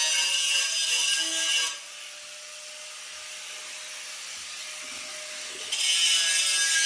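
Abrasive power tool grinding bare steel on a car body to prep the surface for welding: a steady hissing grind. It is heavier for the first couple of seconds, lighter for about four seconds, then heavier again near the end.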